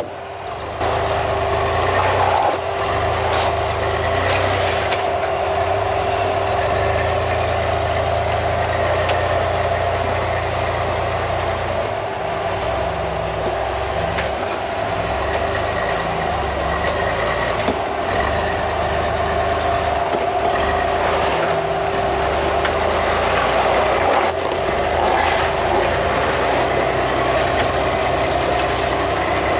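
Rock crawler buggy's engine working under load as it climbs a steep, twisting rock chute, the engine note rising and falling with the throttle, over a steady whine. It gets louder about a second in.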